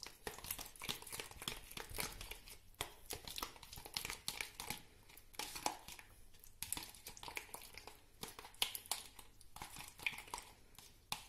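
A spoon stirring thick yogurt sauce in a thin plastic tub: quick, irregular scraping and clicking against the plastic sides, with the tub crinkling in the hand.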